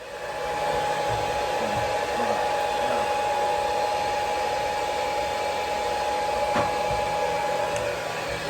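Hair dryer blowing steadily: a constant motor whine over the rush of air, switching on at the start.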